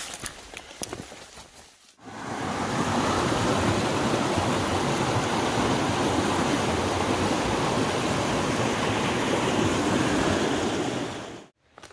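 Footsteps crunching through dry scrub for about two seconds, then a creek rushing steadily and loudly, which cuts off abruptly just before the end.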